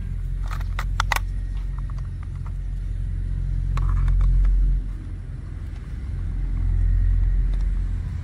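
A loud low rumble that swells twice, about halfway through and again near the end. Over it, a few sharp plastic clicks about a second in as the toy car's plastic parts are handled.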